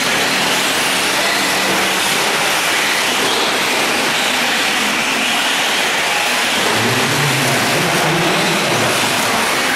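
Electric radio-controlled 4WD short course trucks racing on a dirt track: a steady, loud din of motor and gear whine and tyres on the dirt, with a low hum rising for a couple of seconds about seven seconds in.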